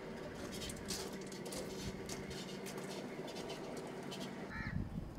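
Clicks and scratches of hands working a plastic electrical connector and wiring at a truck's rear light assembly, over a steady machine hum. A bird calls briefly near the end.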